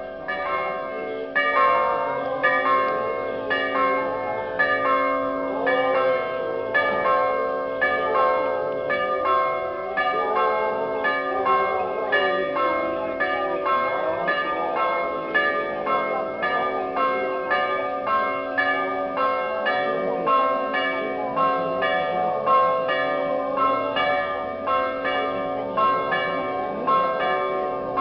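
Orthodox church bells rung continuously for the feast, a quick, even run of strikes with the bells' tones ringing on under each new stroke. Faint crowd voices sit beneath the bells.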